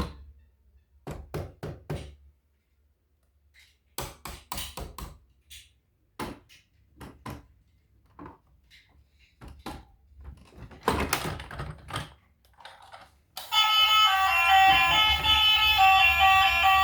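Scattered knocks, taps and thunks of toys and packaging being handled, in irregular clusters with quiet gaps. Plucked guitar music starts near the end and stays loud.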